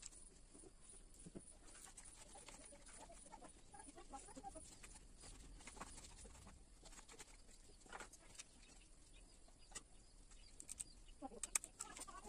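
Near silence with scattered faint clicks and taps of tools and engine parts being handled, and a cluster of sharper clicks near the end.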